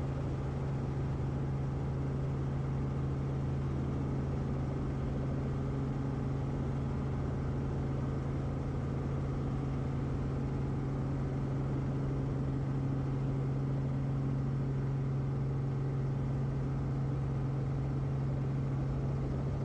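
Robinson R44 helicopter running at flight power, a steady, unchanging drone of engine and rotors while it lifts and air taxis.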